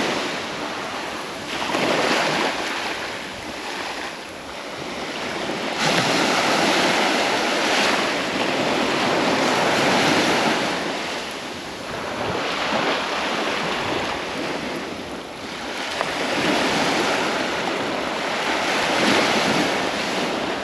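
Surf breaking and washing up the beach, swelling and fading in several surges, with some wind noise on the microphone.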